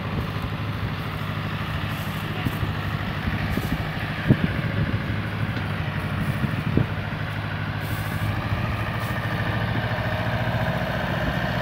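Mahindra mini tractor's diesel engine running steadily under load as it pulls a heavily loaded sugarcane trolley. About 10 s in it revs higher and gets louder. Two short knocks sound about 4 and 7 s in.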